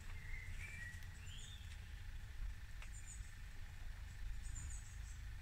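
Wild birds chirping with short rising calls in woodland, over a low steady rumble, with a couple of light knocks as wooden boards are handled.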